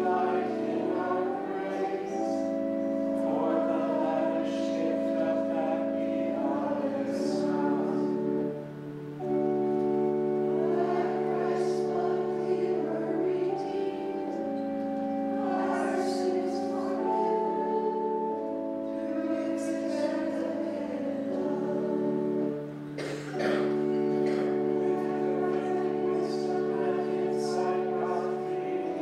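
A congregation singing together with organ accompaniment, the organ holding steady chords under the voices. There are two short pauses between sung lines, about eight and a half and twenty-two seconds in.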